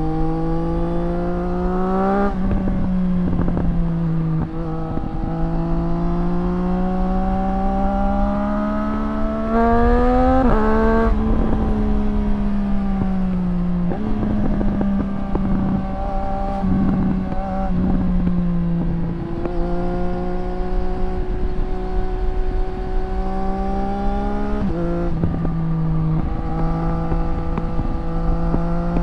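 2024 Triumph Street Triple RS's 765 cc inline three-cylinder engine running through a Zard titanium exhaust while riding. The exhaust note climbs slowly in pitch and drops back about six times, with wind rumble on the microphone underneath.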